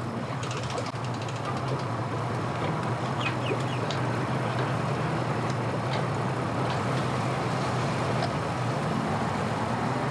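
Engines running steadily with a constant low hum, with a few faint high bird chirps over it.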